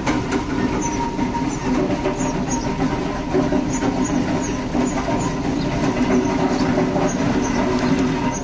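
Steady mechanical drone of a running machine, a continuous rumble with a low hum, with short high chirps recurring about twice a second.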